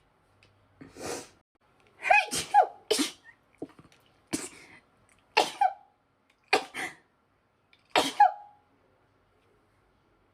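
A woman's sneezing fit: a quick run of about eight sneezes, a second or so apart, several coming in close pairs. Each is a sharp voiced 'achoo' whose pitch falls away.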